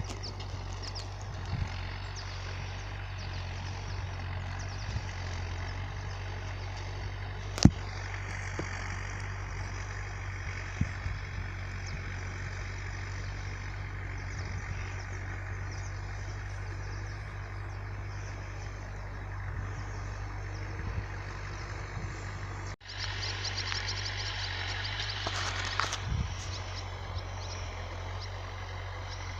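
John Deere 310A backhoe loader's diesel engine running steadily while it pulls a disk through the field, with wind noise on the microphone and a single sharp click about eight seconds in.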